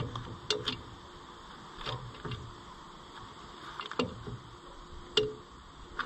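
About six scattered, sharp metal clicks as a wire's ring terminal is touched against the terminals of a Fiat tractor's electric horn and its battery. The horn does not sound, a fault later traced to dirty contact points inside it.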